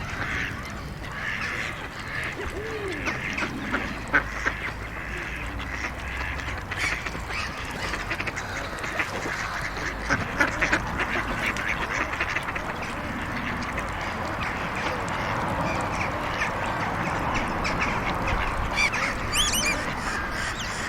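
Ducks quacking and calling on a pond, many short calls overlapping, over a steady low rumble of road traffic. A few high chirps sound near the end.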